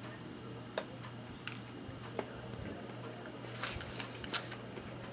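Faint, scattered clicks and crackles as a dark chocolate almond bar is bitten and chewed and its foil-lined paper wrapper is handled, with a few sharper snaps near the end.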